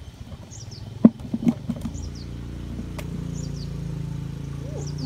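A motor running steadily, a low hum that sets in about two seconds in and grows a little louder, just after a few sharp knocks. A bird repeats a short, high, falling chirp about every second and a half.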